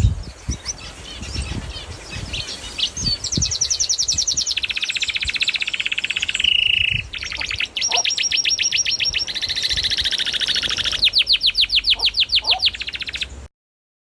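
Birds singing: a few short chirps at first, then long, very rapid trills of repeated notes, one run after another. The sound cuts off suddenly near the end.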